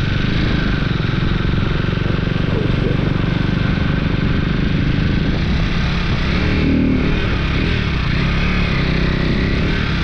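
Sport motorcycle's engine running steadily while being ridden on a wet road, with a steady hiss over it.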